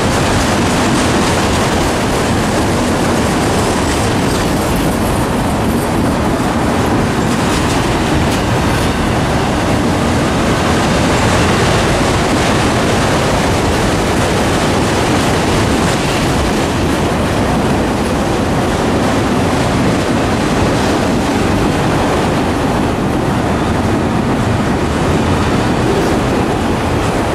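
Freight train of autorack cars rolling steadily past at close range: the even, loud running noise of steel wheels on the rails.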